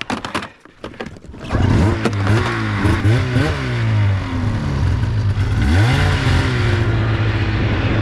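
Two-stroke twin engine of a 2003 Polaris RMK 700 snowmobile, after a few short knocks, picking up about a second and a half in. It revs up and down several times as the sled works out of deep powder, then runs at a steadier high speed.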